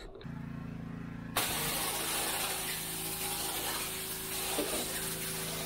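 Pressure washer running with a steady motor drone. About a second in, the high-pressure spray starts hissing onto the truck's cab floor and keeps going.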